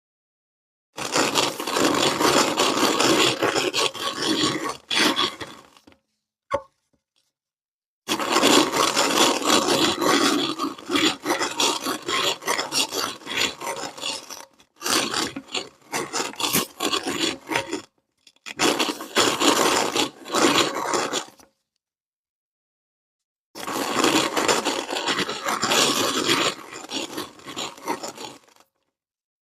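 Kinetic sand being forced through a meat grinder: a gritty, crunching rub in five stretches of a few seconds each, broken by complete silence between them.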